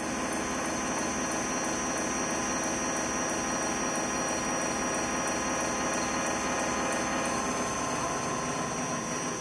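Gear-cutting machine cutting the teeth of a large gear under a flood of coolant: a steady machine whir with liquid spraying and splashing.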